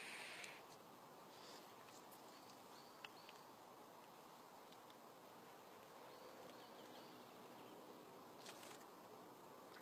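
The hiss of a draw on an e-cigarette, a 0.3-ohm coil fired at 50 watts, cuts off about half a second in. Near silence follows: faint forest ambience with a few short, faint bird-like chirps.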